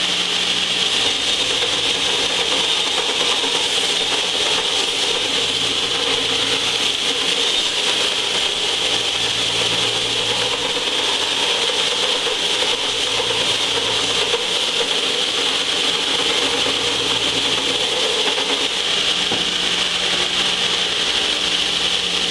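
Large heavy-duty belt sander running steadily with a cast exhaust manifold's flange face pressed against the belt, sanding down the high spots to flatten the warped manifold.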